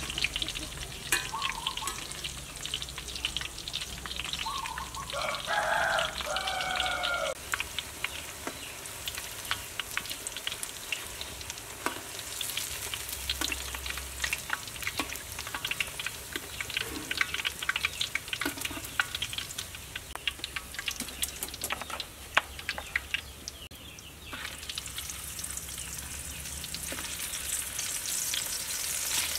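Battered enoki mushrooms deep-frying in a wok of hot oil: a steady crackling sizzle with scattered sharp pops. A bird calls briefly about five seconds in.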